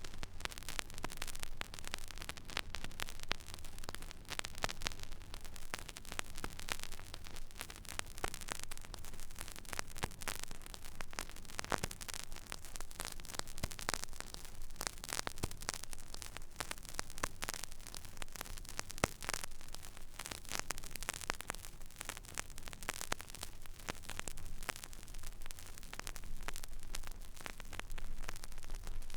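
Stylus tracking an empty vinyl record groove: steady surface hiss with dense random crackle and pops, over a low hum.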